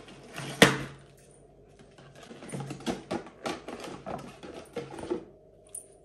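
Handling noise from a hair dryer being lifted out of its cardboard box and insert. One sharp click comes under a second in, then a run of small clicks and rustles about halfway through.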